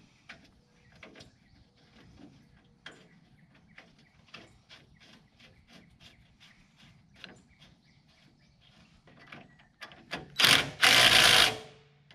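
Faint scattered metal clicks and taps as the row-marker cylinder is fitted into the planter toolbar. About ten seconds in, a cordless power driver runs in two short loud bursts, driving in the bolts that hold the cylinder in place.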